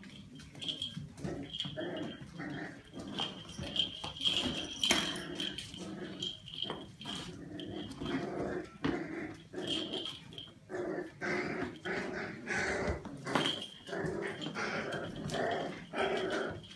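Five-and-a-half-week-old Grand Basset Griffon Vendéen puppies at play, making many short growls and whines.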